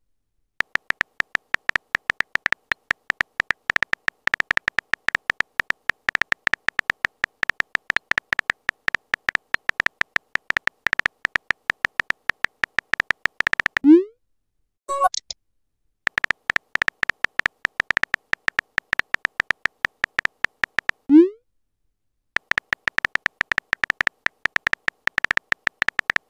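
Texting app's keyboard-tap sound effect: rapid, high, clicky taps in long runs as a message is typed letter by letter. About 14 s in a short rising pop marks a message being sent, followed by a brief notification blip for an incoming message. A second rising pop comes about 21 s in, then the taps run on.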